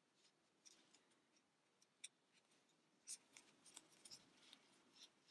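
Near silence, with faint scratchy ticks of a metal yarn needle and yarn being drawn through crocheted stitches, a few at first and more in the second half.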